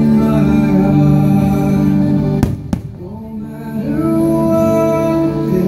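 Fireworks show soundtrack music playing loudly over the park speakers in long held chords. About two and a half seconds in, two sharp firework bangs come close together as the music briefly drops away, then it swells back.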